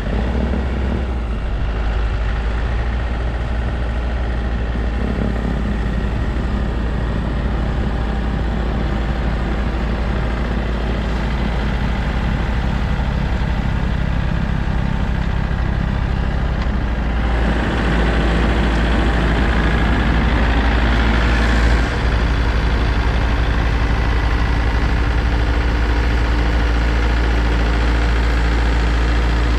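Branson tractor's diesel engine running steadily at raised revs while clearing snow with a snow blower. About 17 seconds in it picks up, getting louder with more whine and hiss, and it briefly dips once a few seconds later.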